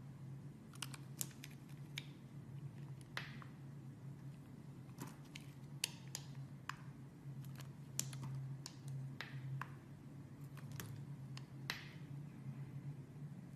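Utility knife blade cutting into a bar of soap: irregular sharp clicks and crackles as the blade bites and chunks break away, over a steady low hum.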